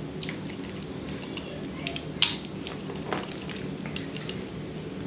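Eating boiled crawfish and crab by hand: shells cracking and being picked apart, with mouth noises and the rustle of handling the pile. Several short, sharp cracks and clicks, the loudest a little over two seconds in.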